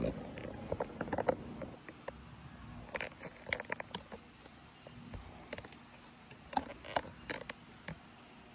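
Trading-card packs being handled: scattered light clicks and brief crinkles of foil wrappers in small clusters, about a second in, around three seconds, and again near seven seconds.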